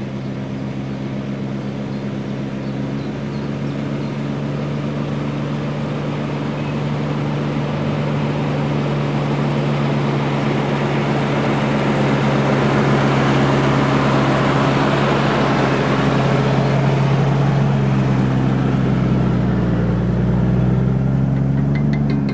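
Engine of a lifted Jeep Cherokee XJ pulling under load up a dirt track, a steady engine note growing louder as the vehicle approaches. Near the end, as it passes close, the note wavers and shifts with added low rumble.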